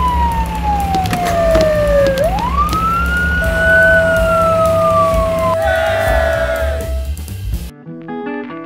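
Fire engine siren wailing in slow sweeps, its pitch sliding down, back up and down again over a low engine rumble, then winding down. Plucked acoustic guitar music starts near the end.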